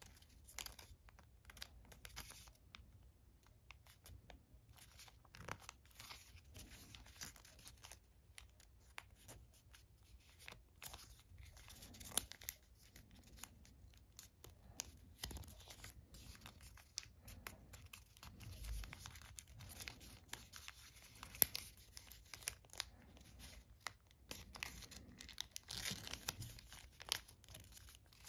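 Folded origami paper rustling and crinkling faintly as fingers tuck the units of a modular paper star together and press their creases, in many short scratchy rustles and ticks.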